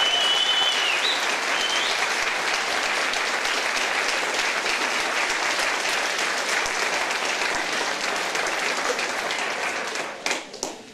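Audience applauding, steady at first, then thinning out to a few last claps near the end.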